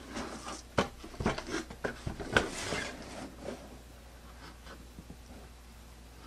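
Cardboard toy box being handled and turned around: rubbing and scraping of the cardboard with several sharp knocks over about the first three seconds.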